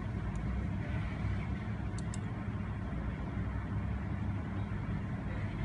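Steady low mechanical rumble with a faint hiss over it, and two faint ticks about two seconds in.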